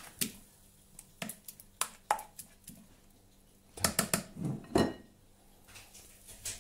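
Kitchen utensil clicking, knocking and scraping against a frying pan while pancakes are cut and moved, with scattered sharp clicks and a louder run of clatter about four seconds in.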